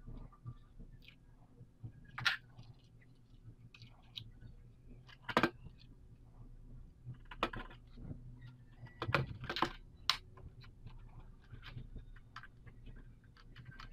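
Handling of test leads: plastic mini hook clips snapping onto a power transistor's legs and wire ends pushed into a multimeter's transistor socket. A scattering of sharp clicks and small knocks, with faint rustling between, over a faint low hum.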